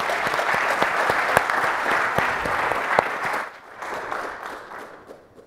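Audience applauding, dense at first, then thinning and dying away over the last two seconds.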